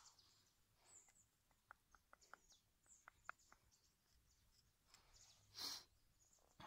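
Faint, light clicks and taps of wooden bow drill parts (hearth board, spindle and handhold) being handled, about a dozen in quick succession, then one short breathy rush over five seconds in.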